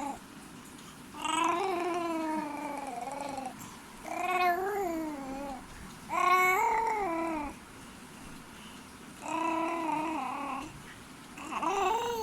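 A baby making long, drawn-out cooing calls that glide up and down in pitch, five in a row with short pauses between.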